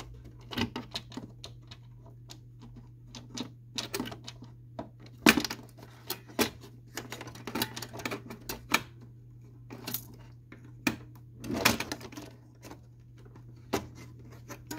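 Irregular hard plastic clicks, taps and knocks as an HP OfficeJet Pro's paper pickup roller assembly is worked back into its slot in the printer's plastic frame, with the loudest knocks about five and eleven and a half seconds in. A steady low hum runs underneath.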